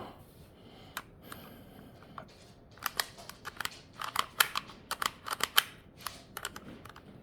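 A 2020 Nissan Altima rear door lock assembly being worked by hand, with a single sharp click and then a quick run of about a dozen mechanical clicks. The lock is not working as it should; the owner suspects a part is fitted the wrong way round.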